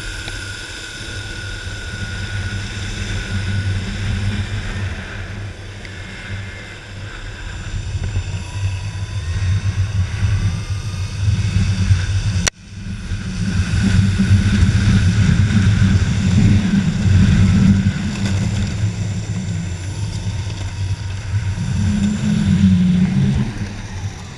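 Electric longboard rolling on asphalt: a steady rumble of urethane wheels on the road mixed with wind buffeting the low-mounted action camera's microphone, with a faint high whine over it at times. The sound breaks off for a moment about halfway through.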